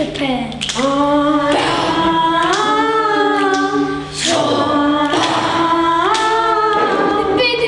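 Stage performers singing long held notes, sliding up into each note, in two phrases with a short break about four seconds in.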